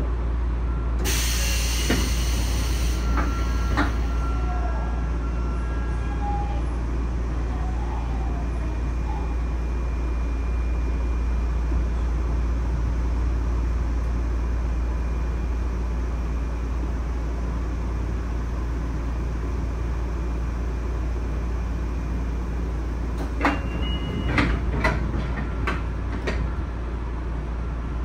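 Sotetsu 9000 series commuter car standing at a station with a steady low hum. About a second in, the sliding passenger doors open with a hiss of air. Near the end a short tone sounds and the doors close with several knocks.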